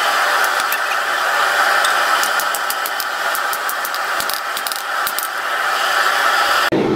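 Steady roar of the forge and running shop machinery in the smithy, with a quick run of light hammer taps on the hot blade at the anvil from about two to five seconds in. Near the end the sound cuts abruptly to a deeper drone.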